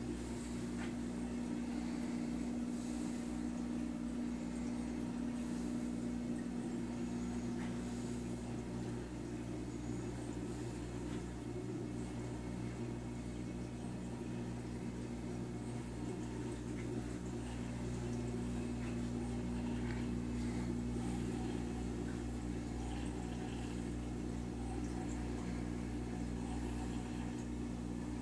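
Steady low electrical hum of reef aquarium pumps and equipment, an even drone that does not change.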